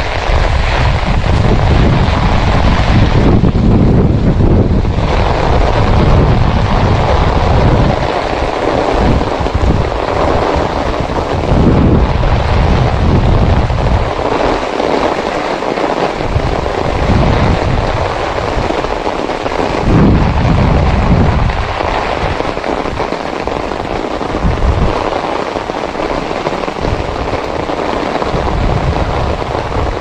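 Heavy rain falling steadily, with gusts of wind buffeting the action camera's microphone in low surges that swell and ease, heaviest in the first several seconds and again now and then.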